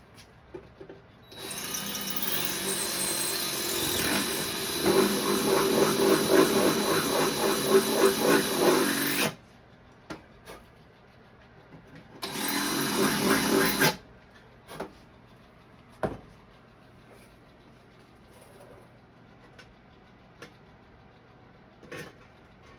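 A handheld power tool runs for about eight seconds, its sound growing heavier and rougher partway through as it works into the material. It stops, then runs again for under two seconds. A few light knocks follow.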